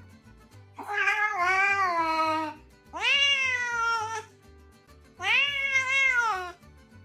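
A cat meowing three times, each a long drawn-out call that rises and then falls in pitch.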